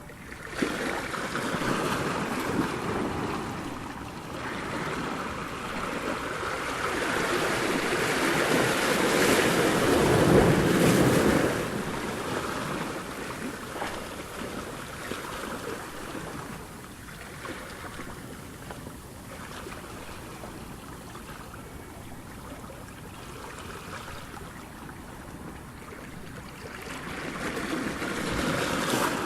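Ocean surf: waves washing in, one swelling to a loud break about a third of the way through and easing off, with the next wave building near the end.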